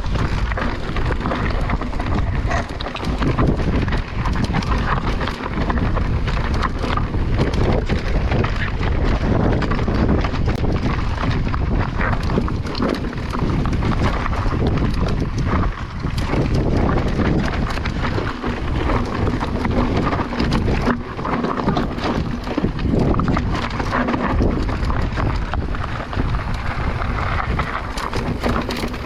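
Mountain bike riding down a rough trail: steady wind buffeting on the microphone, with tyres rolling over loose stones and the bike rattling in a constant run of small knocks.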